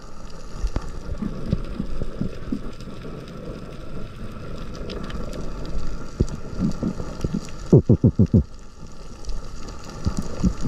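Underwater reef ambience picked up by a diver's camera: a steady low wash with scattered faint clicks. About eight seconds in comes a quick run of five or six low pulses.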